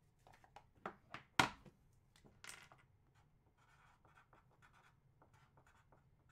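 Objects handled on a wooden tabletop: a few sharp knocks about a second in, the loudest a dull thud, then a short scrape and light scratching and tapping.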